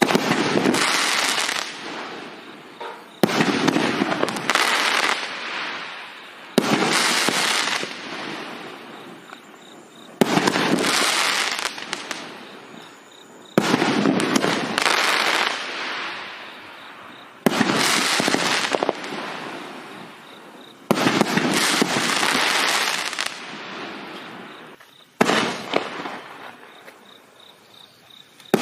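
A 500-gram consumer fireworks cake firing comet shots one at a time. There are eight shots, about every three and a half seconds, each a sudden bang followed by a hiss that fades over two or three seconds.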